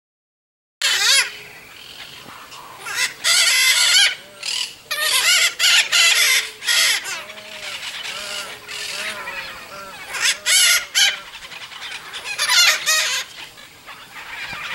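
Red-shouldered macaws (Diopsittaca nobilis) giving harsh, screeching calls in about five loud bursts, with quieter calling between them.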